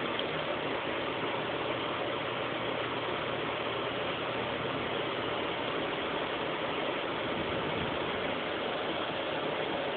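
Box fan running with a steady, even hiss.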